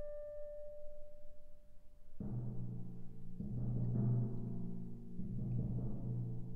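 Classical orchestral music from the slow movement of a clarinet concerto. A single held wind note fades away, then about two seconds in the orchestra comes in with low, repeated swelling chords.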